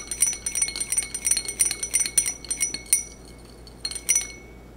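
A thin metal rod stirring liquid in a small glass beaker, clinking quickly against the glass at about five or six taps a second, each tap ringing briefly. The stirring stops about three seconds in, and a few last clinks follow near the end.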